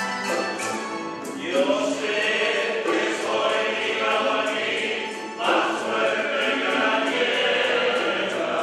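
A Spanish tuna ensemble of bandurrias, lutes and guitars strumming and plucking, with men's voices starting to sing together about a second and a half in. The singing breaks briefly a little past the middle, then carries on over the strings.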